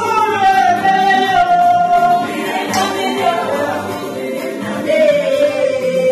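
A song playing: a voice holds a long note that slowly falls in pitch over backing music, then holds a second, lower falling note near the end.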